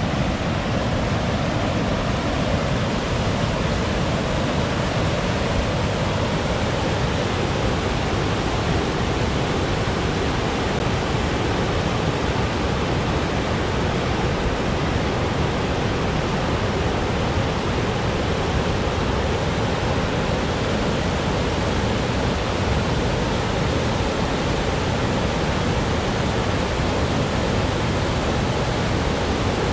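Loud, steady rush of fast-moving water, an even roar with no breaks or changes.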